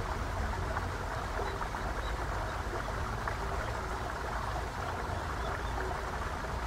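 Steady nature-sound background of running water, an even rush with a low rumble underneath.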